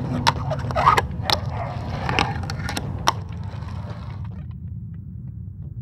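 A fingerboard's wheels roll and its wooden deck clicks on a wooden ramp, with about six sharp pops and taps over the first three seconds. A steady low hum runs underneath, and the sound fades out after about four seconds.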